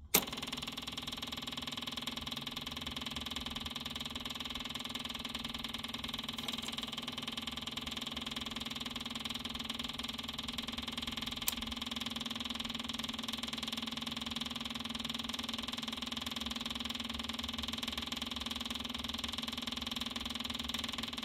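Electric fuel pump of a Massey Ferguson GC1723 diesel compact tractor running with a steady hum, key switched on for a cold start before cranking. A click as it switches on, and one short click about eleven seconds in.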